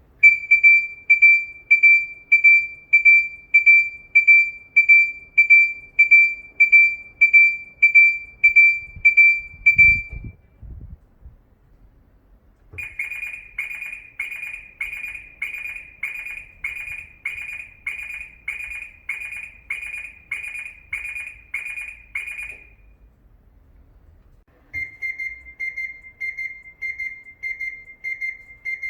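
Three Japanese truck factory left-turn alarms sounding one after another. First a Hino alarm made by Denso beeps a clean high tone about one and a half times a second. After a short gap an Isuzu alarm beeps at the same pace with a rougher, buzzier tone, and near the end a Mitsubishi Fuso alarm made by Niles starts, its beep slightly lower and fainter.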